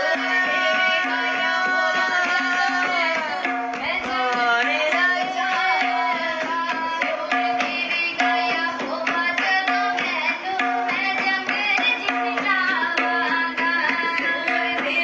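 Christian worship music with a tabla playing a steady beat under a wavering melody and a held low drone note.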